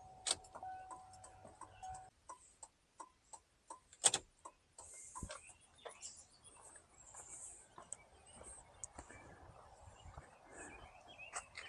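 Chevy Tahoe's turn-signal flasher ticking at an even, normal pace of about three clicks a second, with the halogen bulbs back in. The signals are flashing properly. A steady tone sounds for about the first two seconds.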